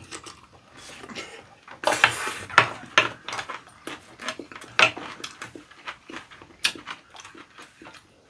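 Close-up eating sounds: chewing and smacking on kimchi fried rice and green-onion kimchi, with spoons and chopsticks clicking and scraping on ceramic bowls in irregular short knocks.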